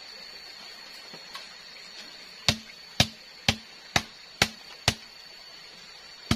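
Blade chopping into sugar palm fronds: six sharp strokes about two a second, then one more near the end. A steady high-pitched whine runs underneath.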